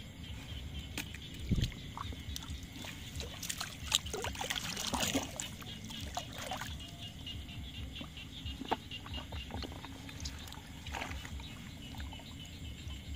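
Paddy water splashing and trickling as hands work fish out of a gill net, in scattered small splashes with a busier stretch of splashing and dripping about four to six seconds in.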